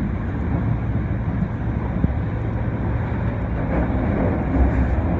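Steady running noise of an Osaka subway 22 series train, heard from inside the car: a continuous low rumble of wheels on rail and the traction equipment as it travels between stations.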